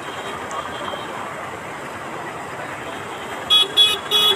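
Steady street noise, then near the end a vehicle horn honks in three quick short beeps.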